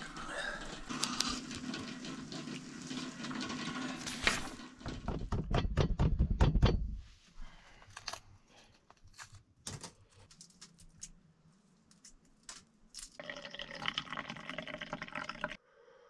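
Hot chaga tea being sipped and slurped from a cup, with a loud low rumble and a rapid run of clicks in the middle. Then come scattered small clicks and crackles of a boiled egg's shell being cracked and peeled.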